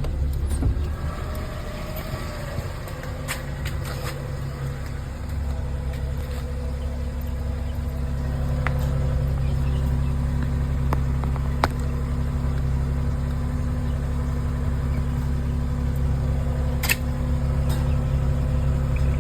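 Car engine idling steadily just after being started, with a few faint ticks here and there; no turbo whistle is heard.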